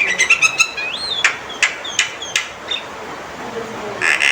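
Male Javan myna calling: a quick run of clicking notes, a whistle that rises and falls about a second in, several sharp clicks each with a short whistle, then a harsh rasping call near the end.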